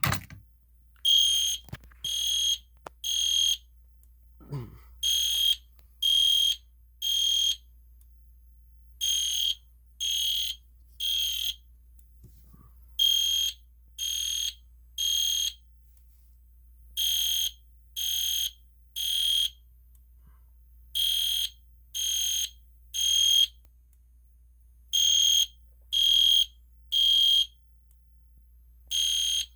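EST Genesis horn strobe sounding a fire alarm in the temporal-three evacuation pattern: three short, high-pitched horn blasts about a second apart, then a pause, repeating over and over.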